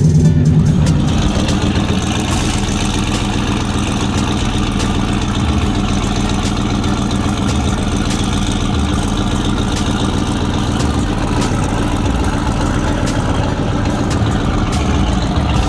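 Turbocharged LSX V8 in a box Chevy idling steadily.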